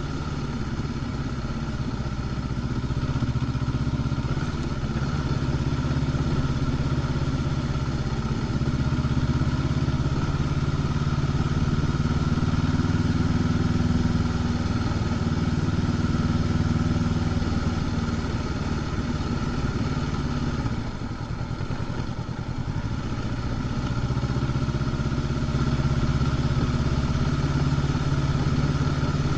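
Honda CB500X's 471 cc parallel-twin engine running through its stock exhaust while riding, heard from the rider's position. It pulls steadily, eases off briefly about two-thirds of the way through, then pulls again.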